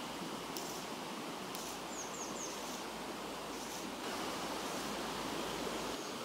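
Steady rush of a shallow river flowing over stones and through a riffle. Three quick, faint high chirps come about two seconds in.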